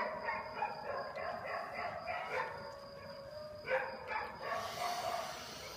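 A dog barking and yelping faintly: a run of quick calls in the first couple of seconds, then a sharper one near four seconds in.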